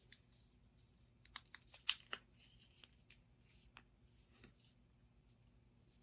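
Faint clicks and light rubbing of plastic as the halves of a snap-fit plastic model kit's saucer are pressed and fitted together by hand, the sharpest clicks about two seconds in.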